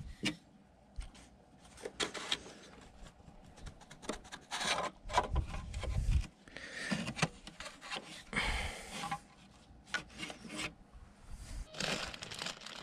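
Gloved hands working at plastic fuel-line quick-connect clips on a truck engine: scattered clicks, scrapes and rubbing against plastic, with a few dull bumps. A cloth rag rustles near the end.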